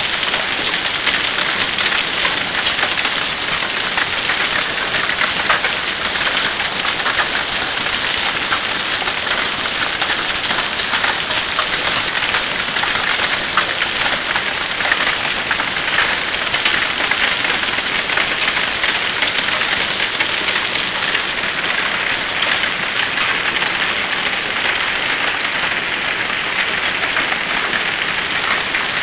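Hailstones pelting down on ground, plants and house in a dense, steady hiss of countless small ticks.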